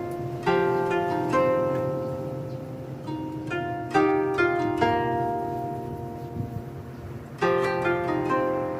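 Background music of plucked-string notes and chords, each group struck sharply and then ringing out and fading, with new notes coming in every second or so.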